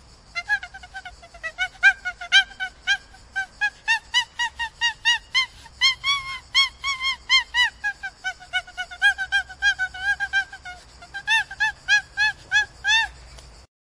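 An animal calling in a long run of short, arched notes, about four a second. The notes rise in pitch midway, sink again, then rise once more before stopping abruptly near the end.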